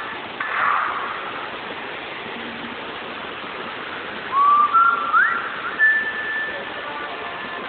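Whistled notes over the steady rush of waterfall water: about four seconds in, a couple of short rising glides, then one long held note.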